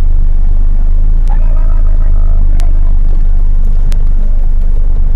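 Steady heavy low rumble inside a moving car's cabin: road and engine noise, loud on the microphone.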